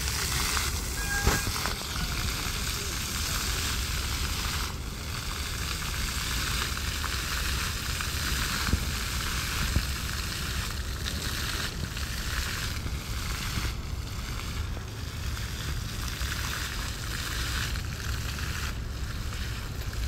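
Fountain water spraying and splashing down, a steady hiss. A short high tone sounds about a second in.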